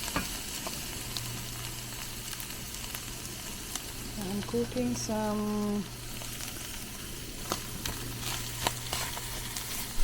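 Food sizzling in a frying pan, a steady hiss with scattered small clicks and taps from a utensil, over a steady low hum.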